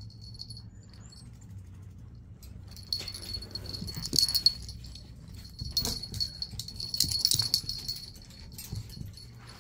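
Metal jingling from a small Chihuahua's collar and harness as it scampers and pounces on a ball, with light clicks and rattles. The jingling is loudest from about three seconds in until about eight seconds, with a faint steady hum underneath.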